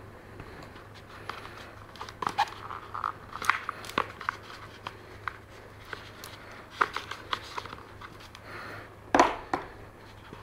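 Light clicks and taps of small hard objects being handled, with a louder clack about nine seconds in as a magnetic pen built from stacked earth-magnet pieces is set down on a tabletop.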